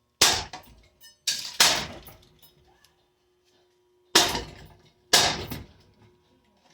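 Five hard, sharp blows struck on a Hampton Bay ceiling fan as it is smashed, each dying away within about half a second. Two come close together about a second in, and two more a second apart near the end.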